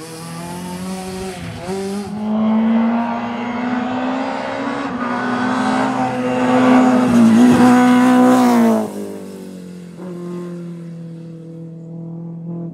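A Renault Clio rally car's engine dies away over the first couple of seconds. Then a BMW E30 rally car comes on at full throttle, its engine note held high and growing louder, with a brief dip about seven seconds in. About nine seconds in the revs drop suddenly and the engine runs on lower and quieter.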